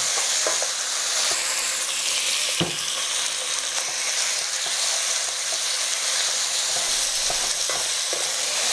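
Sliced chicken breast sizzling in hot oil in a wok, with a few light knocks of a wooden spatula as it is stirred, the strongest about two and a half seconds in.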